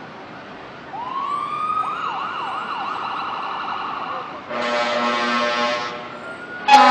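Fire truck siren sweeping up and then yelping in rapid up-and-down wails, followed by a loud air horn blast lasting about a second and a half. A second horn blast starts just before the end.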